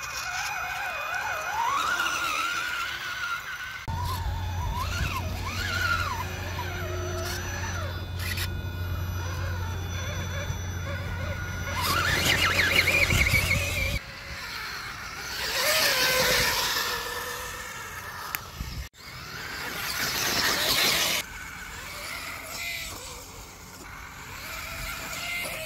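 Brushless motor and gear drivetrain of an RC rock crawler whining, the pitch rising and falling with the throttle, heard across several short driving clips that cut in and out abruptly.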